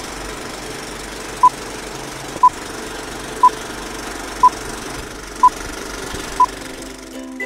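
Film-leader countdown sound effect: an old film projector running with a steady mechanical rattle, and short beeps once a second, six in all, starting about a second and a half in, counting down the leader.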